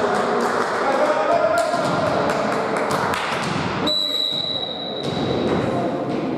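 Hall sound of an indoor volleyball game between rallies: players' voices and a run of sharp smacks. About four seconds in comes one steady, shrill whistle blast that is strong for about a second and then fades in the hall's echo.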